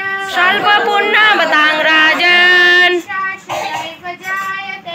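A woman singing a Bengali devotional melody in long, drawn-out notes that bend in pitch, with harmonium accompaniment, breaking off briefly about three seconds in.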